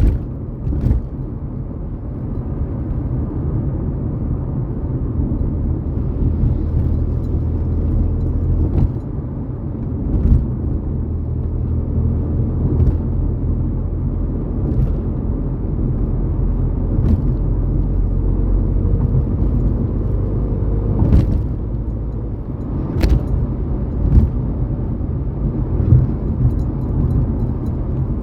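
Ford Fiesta EcoBoost car running, a steady low rumble with a faint tone that slowly rises in pitch for several seconds past the middle. Scattered sharp clicks and knocks, loudest twice a little past two-thirds of the way through.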